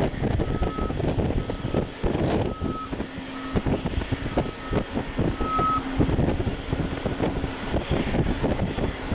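A vehicle's reversing alarm beeping steadily on one high tone, a little under two beeps a second, stopping about six seconds in. Underneath is the loud low rumble of a taxiing Boeing 787-8's jet engines.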